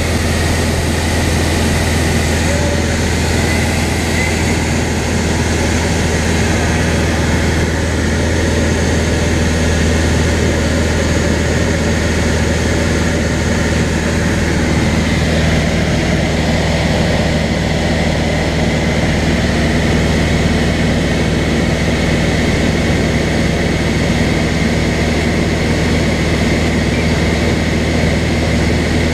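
Propeller engine of a single-engine light aircraft droning steadily in cruise flight, heard inside the cockpit as a constant low hum.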